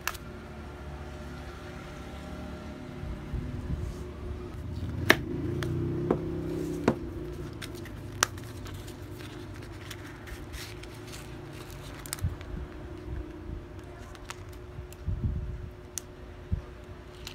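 Small cardboard jewellery box and paper packaging being handled and opened: a drawer slid out, a folded paper envelope unfolded, with scattered sharp clicks and taps over a faint steady hum.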